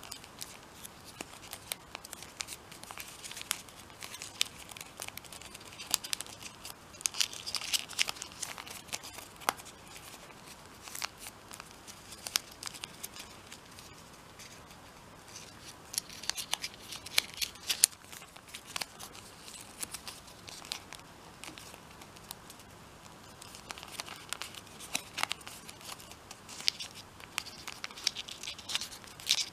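Purple origami paper being folded and creased by hand: soft rustling with many sharp little crackles as creases are pressed and flaps tucked. It comes in busy clusters with a few quieter pauses.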